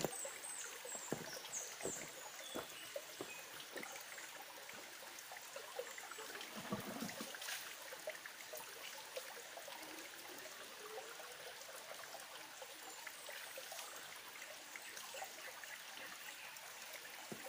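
Small, shallow stream trickling over stones, a faint steady flow. A few short, high chirps and light clicks come in the first couple of seconds.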